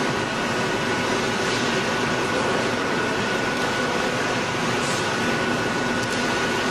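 Hot-coiling spring machine running steadily as it winds a red-hot steel rod onto a rotating mandrel: even mechanical noise with a constant high-pitched whine.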